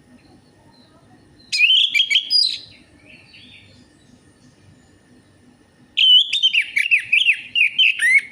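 Orange-headed thrush singing: two bursts of quick, varied whistled notes, the first about a second and a half in and the second from about six seconds on.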